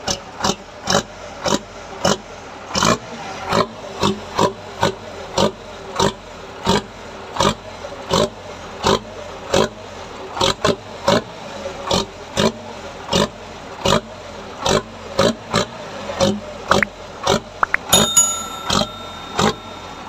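Truck engine idling through a modified used exhaust that gives a deep, growling 'ngorok' (snoring) note, with a loping beat of about two to three exhaust puffs a second. Near the end a bright ringing chime sounds over it.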